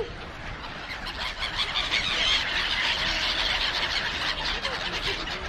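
A large flock of black-headed gulls calling over one another: a dense, unbroken chorus of high-pitched calls, the kind a swarm makes when it crowds in to be fed.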